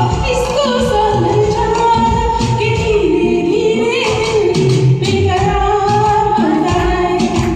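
Hindi film song sung over instrumental accompaniment, the voice holding long, gliding notes.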